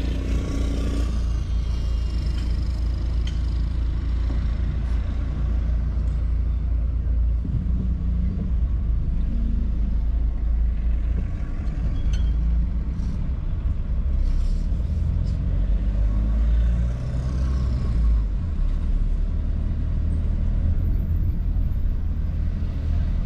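Steady low rumble of a car driving slowly in city traffic, with the noise of the surrounding vehicles.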